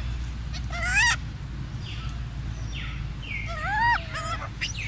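Golden snub-nosed monkey giving two short, high-pitched calls about three seconds apart, each rising and then falling in pitch.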